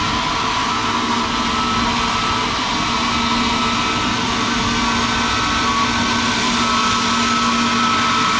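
Airbus A320neo's Pratt & Whitney PW1100G geared turbofan engines running steadily: a continuous jet rush with a few steady whining tones, growing slightly louder toward the end.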